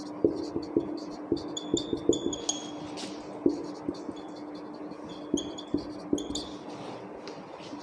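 Marker writing on a whiteboard: short taps of the tip on the board and brief high squeaks in two spells, about a second and a half in and again about five seconds in, over a steady low hum.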